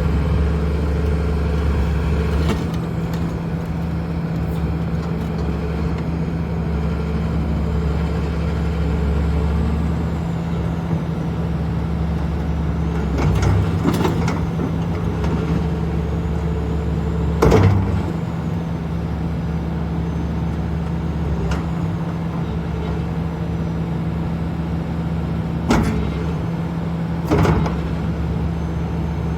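Diesel engine of a Volvo ECR305CL hydraulic excavator running steadily, with a few sharp knocks or clunks scattered through.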